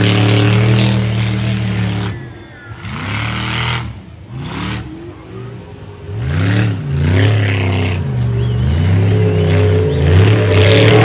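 Mud racing vehicle's engine held at high revs, then dropping off suddenly about two seconds in. It is revved up and down again and again through the middle, and settles back to steady high revs near the end.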